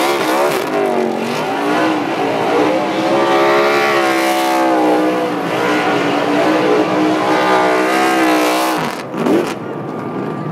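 NASCAR stock car's V8 engine revving hard during a burnout, its pitch rising and falling as the car spins donuts. The engine note drops away about nine seconds in.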